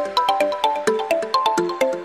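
Electronic background music: a quick run of short plucked notes, about five a second, each starting with a sharp click and fading away.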